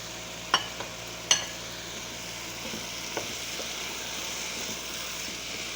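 Tomatoes being stirred into a hot pan of chicken and browned onions, sizzling steadily, with a spoon clinking sharply against the pan twice in the first second and a half and once more about three seconds in.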